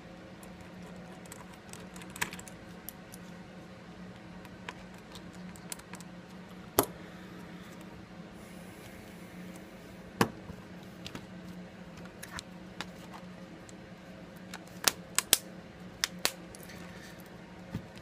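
Galaxy S5 being handled during reassembly: scattered sharp clicks and taps of small plastic and metal parts, a few of them louder, over a steady low hum.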